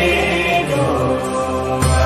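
Background music of a chanted mantra over a sustained low drone, with a new phrase entering near the end.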